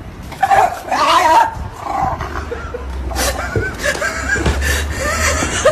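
A dog whining and yelping in short wavering calls, loudest about half a second to a second and a half in, then again in quicker repeated calls near the end.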